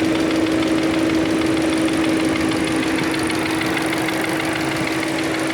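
1.4 TSI turbocharged four-cylinder petrol engine running steadily, with a constant hum and a fast, even ticking over it. This is the noise that its owner presents as a sound problem.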